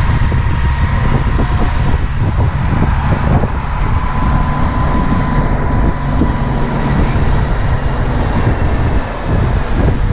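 Wind buffeting the microphone of a camera on a moving bicycle, over the steady running of a city bus just ahead. A faint steady whine sits beneath the rumble.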